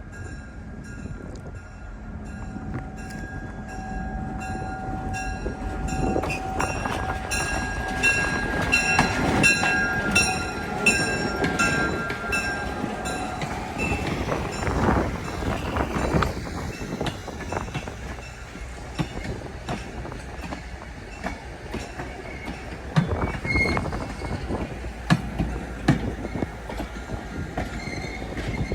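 Diesel heritage train moving, with its bell ringing steadily for about ten seconds. Then comes a louder rumble of the train, followed by scattered clicks and knocks of the wheels over the rails.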